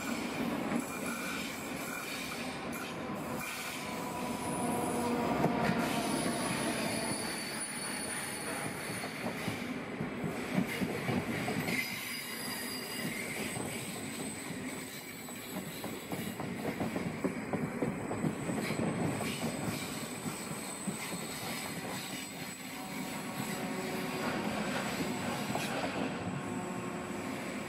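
Trains running through a station: a diesel locomotive, then a double-deck passenger train rolling past on curved track. Wheels rumble on the rails under a steady high-pitched wheel squeal.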